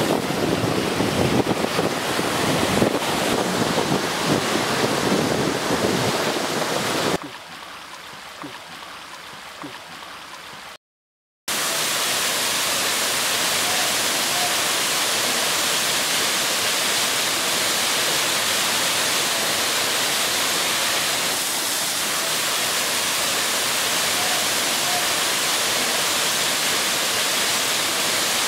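Surf breaking and washing for the first seven seconds, then a few seconds of quieter water. After a brief dropout about eleven seconds in, a waterfall spills over rock slabs with a steady rush for the rest.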